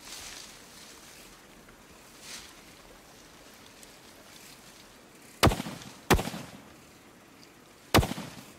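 Three rifle shots: two about a second apart a little past halfway, then a third about two seconds later, each followed by a short echoing tail.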